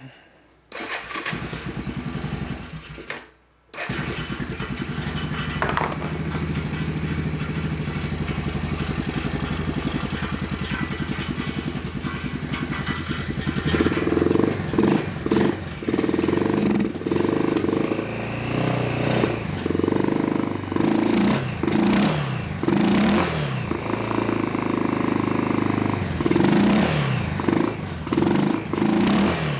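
Yamaha Big Bear 400's single-cylinder four-stroke engine starting on a new replacement carburetor with fuel fed by hand. It catches, cuts out for a moment about three seconds in, then fires again and keeps running. From about halfway it is revved repeatedly with throttle blips.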